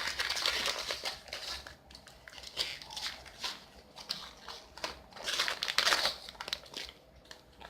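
Parcel packaging crinkling and rustling in irregular bursts as it is pulled open by hand.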